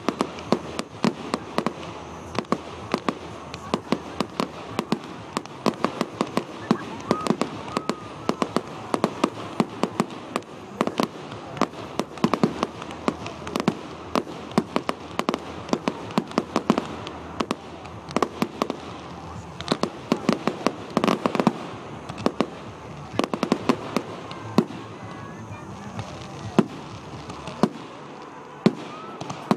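Fireworks display: a fast, unbroken run of sharp bangs and crackles, several a second, over a steady background rumble.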